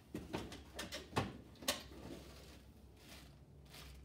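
Several light knocks and rustles of items being handled and lifted out of a foam-lined carrying case, bunched in the first two seconds and quieter after.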